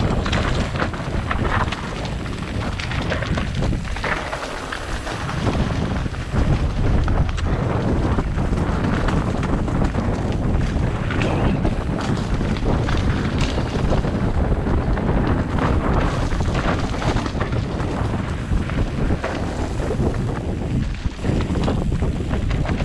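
Wind buffeting the microphone over the continuous rattle, clatter and tyre crunch of a mountain bike being ridden over a rough, technical trail.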